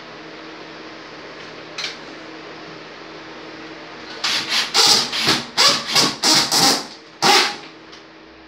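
Cordless drill driving a screw through a shower-curtain rod bracket into the wall, run in a quick series of short trigger bursts starting about four seconds in, with one last burst about a second later. A light click comes about two seconds in.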